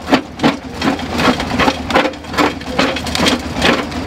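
Old stationary engine running slowly, its exhaust firing in even, sharp puffs at about two and a half a second.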